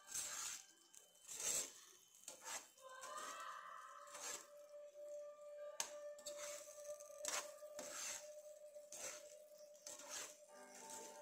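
A metal spoon stirring sauce-coated cabbage Manchurian balls around a nonstick frying pan: repeated short scrapes and clinks about once a second. A faint steady tone runs underneath from about three seconds in.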